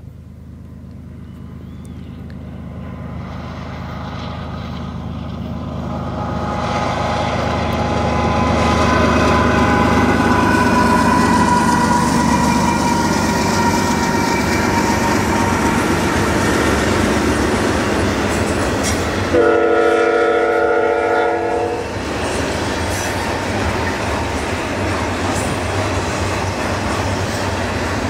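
CN double-stack container train passing: a GE diesel locomotive's engine growing louder over the first several seconds, then the steady rumble and clatter of the container cars rolling by. About two-thirds of the way through, the train horn sounds one blast of about two seconds.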